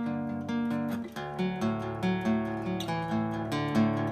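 Cutaway steel-string acoustic guitar played with picked and strummed chords that ring on, moving to a new chord about a second in.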